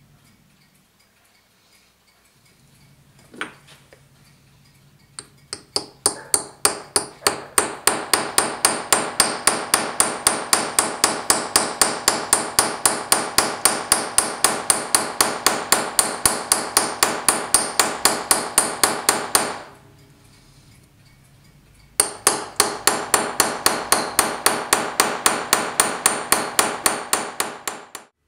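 Small hammer striking a steel punch to peen over a brass bushing riveted into a clock mainspring barrel cover, work-hardening the brass. A few separate blows lead into a fast, even run of light knocks at about five a second, which breaks off for about two seconds and then resumes.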